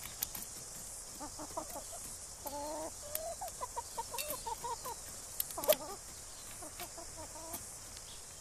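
Chickens clucking: a run of short pitched calls, loudest about two-thirds of the way through, with scattered sharp clicks and a steady hiss behind.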